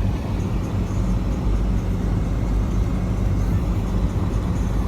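Volkswagen Touareg 7P SUV driving off-road: a steady low rumble of engine and running gear.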